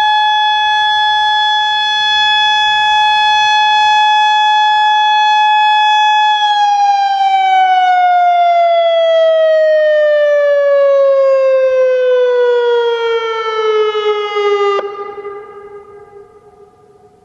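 Federal Signal Modulator 4016 outdoor warning siren sounding its steady Alert tone, then winding down in a long falling pitch as the signal ends. It cuts off sharply near the end, leaving faint tones hanging in the air.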